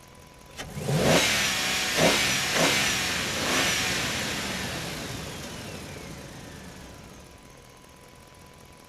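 A car engine revving up four times in quick succession, then its sound fading away slowly as the vehicle drives off.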